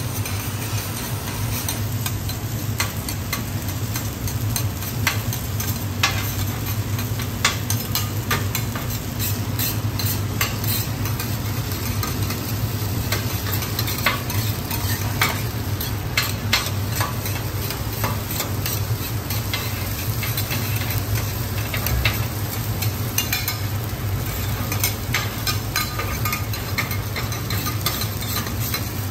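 Two metal spatulas scraping and clicking irregularly on a steel teppanyaki griddle as garlic fried rice is chopped and turned, over a steady sizzle of the rice frying.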